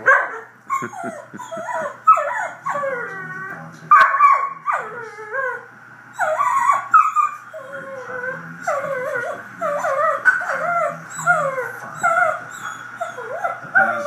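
Shetland sheepdog whining and yipping in a long unbroken string of short cries that slide up and down in pitch, with a few drawn-out howl-like wails among them.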